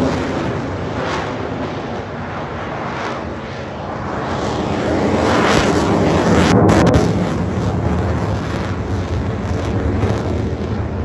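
A fighter jet's engine noise as it manoeuvres overhead, a steady rushing sound that swells to its loudest about six seconds in and then eases off.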